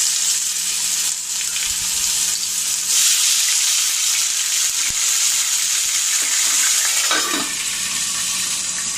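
Ginger-garlic paste sizzling in hot oil and ghee with whole spices in a frying pan, a steady high frying hiss. Near the end a brief knock as a lid goes onto the pan, and the sizzling carries on under it.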